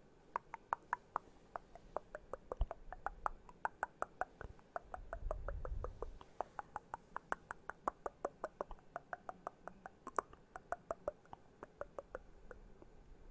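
Fingertips tapping and rasping on a microphone for ASMR, making a quick run of small crisp clicks, several a second. A low handling rumble comes in about five to six seconds in.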